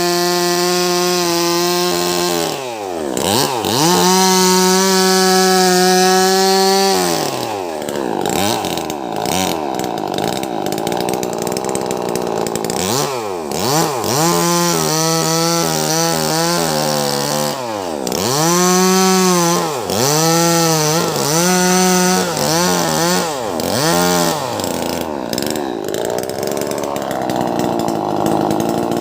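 Wagner 580 two-stroke chainsaw running at high revs while ripping lengthwise through a large log. The engine note sags and climbs back again and again as the chain loads up in the cut.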